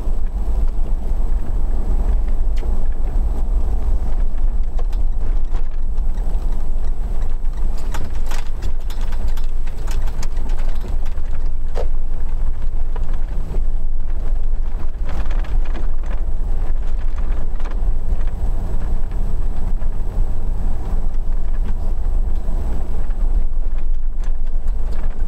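A car being driven on town streets, with steady low engine and road rumble heard from inside the cabin. A few faint knocks are scattered through it.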